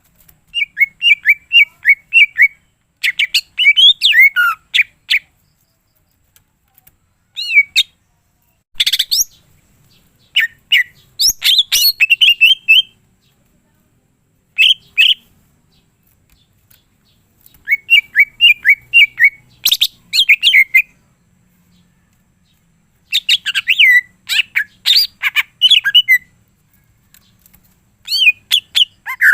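Cucak ijo (green leafbird) singing in loud bursts of rapid, warbling chirps and trills, each phrase lasting one to three seconds with short pauses between. Its song is full of 'isian', the imitated calls of other birds.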